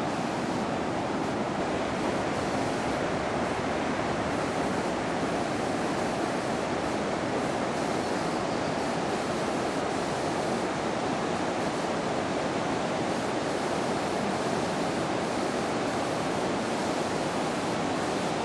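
River in flood, a steady rush of fast, swollen water.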